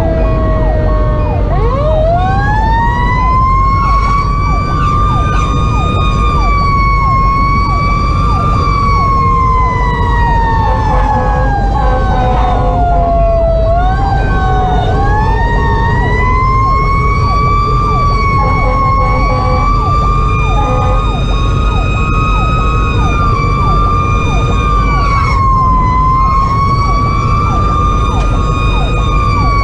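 Federal Q2B mechanical siren on a fire engine, heard from inside the cab. It winds up about a second and a half in and is held at a high pitch, then coasts slowly down. It is wound up again about halfway through and held with small dips, over the truck's diesel engine and road rumble.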